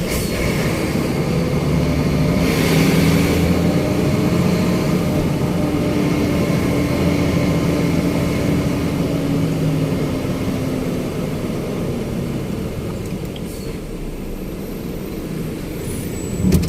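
Large diesel truck engine running steadily, its pitch drifting down and the sound gradually fading in the second half. A brief hiss comes about three seconds in.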